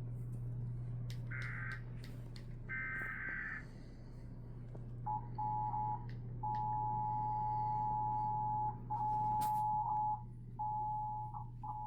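Emergency Alert System test broadcast from a TV: two short buzzy data bursts of the alert header, then the EAS two-tone attention signal, a steady dual tone that cuts out and comes back several times.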